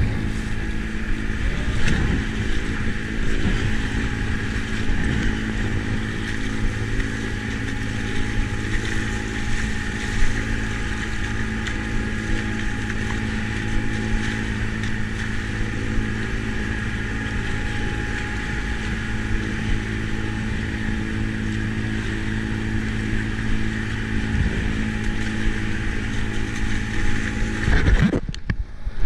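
Fishing trawler's diesel engine running steadily close by, with water rushing and splashing in its bow wave around the kayak.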